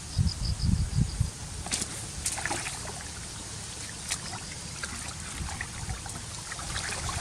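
Water trickling and splashing, with scattered small splashes and clicks. There are low thumps in the first second or so.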